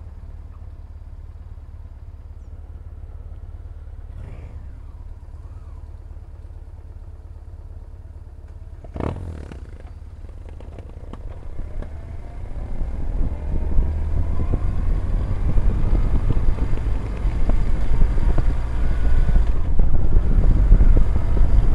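BMW R1150GS boxer-twin motorcycle engine running under way, with wind on the helmet-mounted microphone. It drones low and steady at first, with a single sharp thump about nine seconds in. Then the engine pitch rises as the bike accelerates, and the engine and wind grow much louder toward the end.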